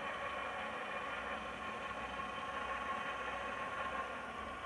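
Two CAME AXO 24 V linear swing-gate operators running, their electric gear motors whirring steadily as they drive the two gate leaves closed; the whir gets a little quieter near the end.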